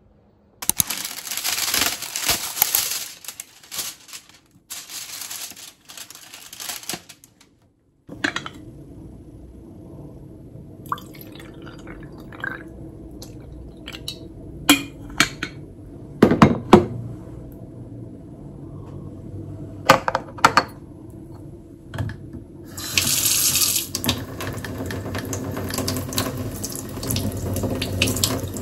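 Kitchen tap turned on with a gush a little after the middle, then running steadily into a steel sink as a strawberry is rinsed under the stream. Before that, water poured from a glass pitcher into a glass, with a few sharp clinks and knocks of glass and kitchenware.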